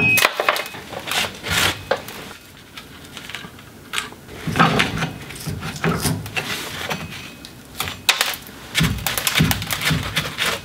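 Flat-blade screwdriver clicking and scraping against the rusty star-wheel adjuster of a drum-in-hat parking brake on a 2002 Chevy Silverado, metal on metal in irregular bursts with short pauses.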